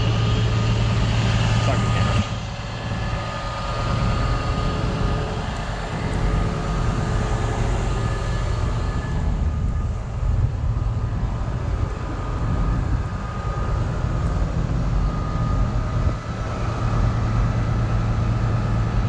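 Large diesel tractor engine idling steadily, with people talking in the background.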